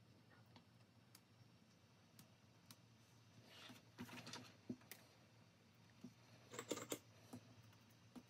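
Faint scattered clicks, with two short clusters of rapid clicking and rattling, one a few seconds in and one near the end, over a low steady hum.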